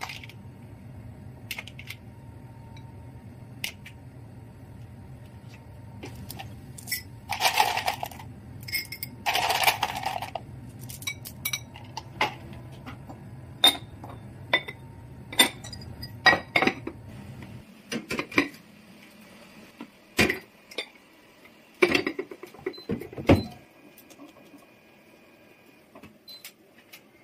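Clear rock sugar crystals poured over strawberries in ceramic pots in two short rattling pours, then ceramic lids clinking and knocking as they are set on the pots. A steady low hum runs underneath and stops about two-thirds of the way through.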